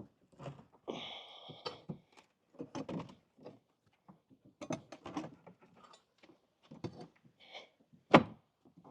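Irregular knocks and thuds of wooden boards being pried and worked loose from a built-in deck bench. A short creaking squeak comes about a second in, and a sharper, louder thud comes near the end.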